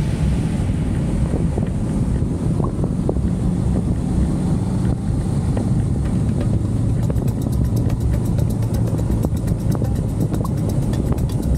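Honda CBR500R motorcycle's parallel-twin engine running steadily while riding, with wind noise on the microphone.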